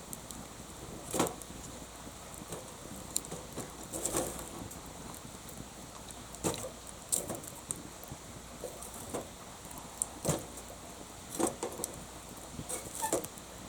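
Wood fire crackling: irregular sharp pops and snaps over a steady soft hiss.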